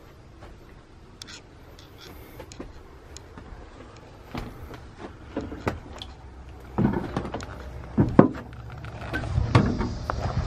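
Footsteps and small knocks of someone walking through a motor home's interior, with a few heavier thuds in the second half.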